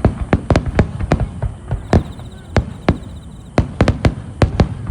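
Fireworks going off: a rapid, irregular string of sharp bangs, more than a dozen in a few seconds.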